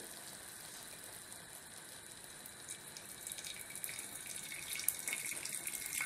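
Hot hedgehog mushroom juice pouring in a thin stream from a saucepan into a glass bowl. It is a faint steady trickle that gets a little louder and more splashy about halfway through as liquid collects in the bowl.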